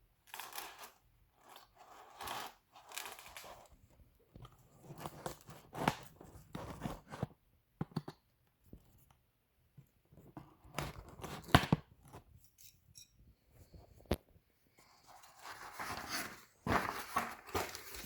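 The packaging of a new garage door opener belt being opened and handled, in irregular bursts of rustling and scraping with a few sharp clicks.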